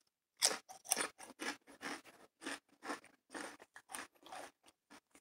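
A hot-sauce-coated Nashville hot chicken flavoured potato chip being bitten and chewed: a run of crisp, irregular crunches, about two to three a second.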